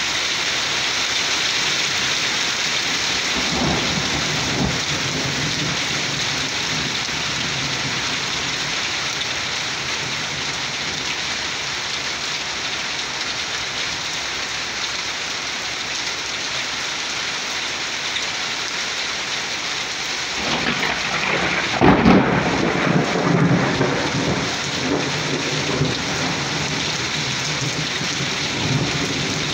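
Steady rain falling during a thunderstorm. A low roll of thunder sounds a few seconds in, and about two-thirds of the way through a sudden loud thunderclap breaks and rumbles on for several seconds.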